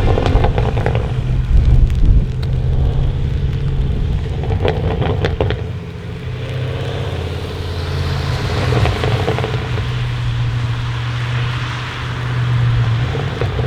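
Audi RS6 C8's twin-turbo V8 running at low revs through a Capristo exhaust, with clusters of sharp crackles about a second in and again around five seconds in.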